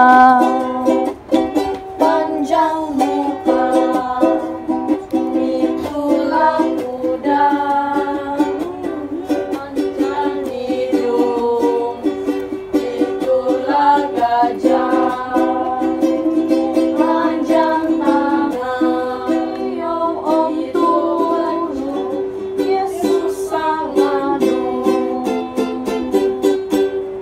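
A church song played on a strummed stringed instrument, with voices singing along.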